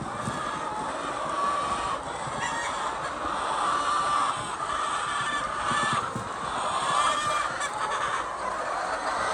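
A large flock of chickens in a henhouse clucking and chattering together, many calls overlapping in a continuous din.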